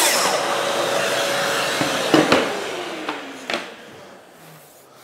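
Festool TS55 track saw fitted with a 12-tooth Panther rip blade, switched off at the end of a cross cut and spinning down, its whine falling in pitch over about three seconds as it fades. Two knocks sound about two and three and a half seconds in.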